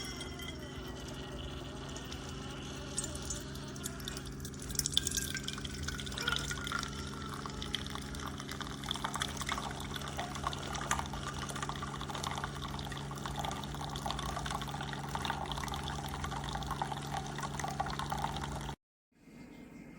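Keurig K-Iced single-serve coffee maker dispensing: its pump hums steadily while liquid streams and drips into the cup. The sound stops abruptly near the end.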